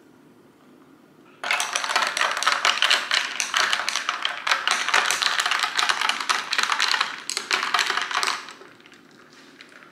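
Ice cubes clinking and rattling against a drinking glass as a straw stirs iced coffee. A fast run of clinks starts suddenly about a second and a half in and dies away about a second and a half before the end.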